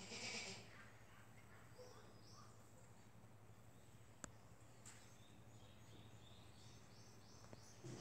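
A dying black goat lying on straw gives one brief breath, a gasp, in the first half-second, one of its last breaths. Otherwise near silence over a low steady hum, with a few faint bird chirps.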